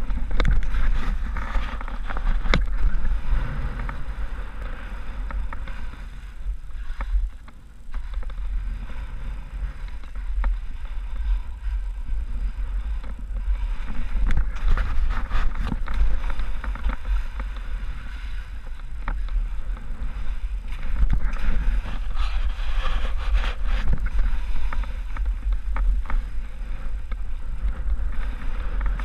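Skis hissing and swishing through deep powder snow in a run of turns, over a heavy wind rumble on a helmet-mounted camera's microphone. The hiss swells and fades from turn to turn, drops to a brief lull a few seconds in, and is dotted with a few sharp clicks.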